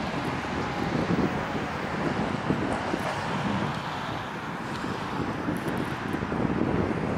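A freight train passing with a GE ET44AH diesel locomotive: a steady low rumble of engine and wheels on rail, with irregular knocks running through it.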